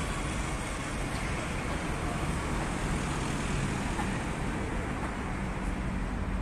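Steady low rumble of road traffic, with a faint engine hum coming and going.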